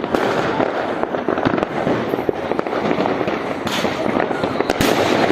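Fireworks going off in dense, continuous crackling and popping, with a couple of sharper bangs near the end.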